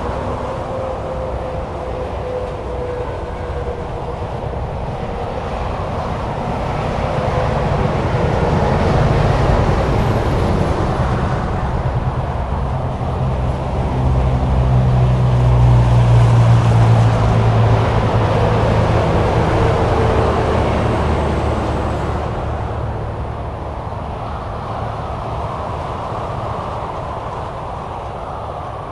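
Highway traffic: a continuous roar of tyres and engines from vehicles passing at speed. The sound swells twice, most strongly about halfway through, where a deep engine drone stands out as a heavy vehicle goes by, then eases off again.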